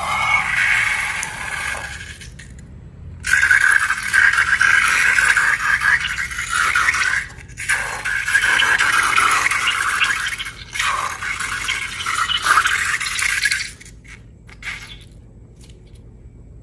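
Scraping and rubbing noise of slime being worked by hand. It comes in two long stretches, the first breaking off about two seconds in and the second running until fading out a couple of seconds before the end.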